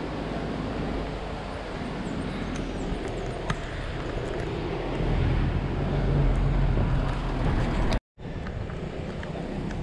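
Wind and rolling road noise on the microphone while moving along a street: a steady rushing rumble that grows louder about five seconds in. It cuts out for an instant just after eight seconds, then steady street noise carries on.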